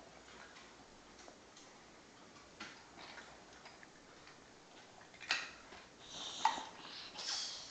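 Scattered light clicks and crinkles of plastic toys and a clear vinyl toy bag being handled. There is a sharper click about five seconds in, and a burst of crinkling rustle near the end.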